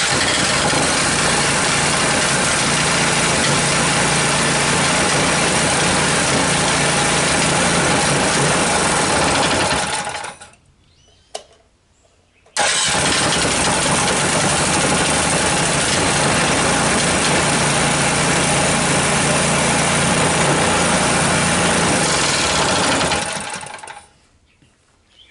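Brand-new Predator 212cc (6.5 hp) single-cylinder engine, electric-started cold on choke: it fires straight away and runs steadily for about ten seconds, then is switched off. About two seconds later it fires again at once, runs steadily for another ten seconds, and dies away as it is shut off near the end.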